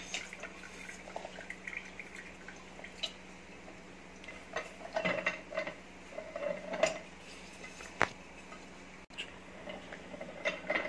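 Kalsi pressure-type manual lever juicer being worked: scattered light clicks and clanks of its metal lever and press cone, with the sharpest knock about eight seconds in.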